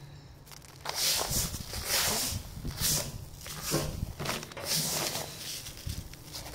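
Dry amaranth seed heads and chaff rustling and crunching as hands scoop, rub and drop them on a plastic tarp, in a string of short swishes starting about a second in.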